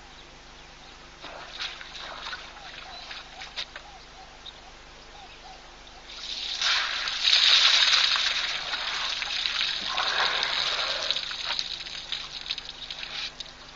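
African elephant drinking at a waterhole: water sloshes and trickles as it draws water up its trunk and lets it run into its mouth. The water noise starts about six seconds in and is loudest soon after.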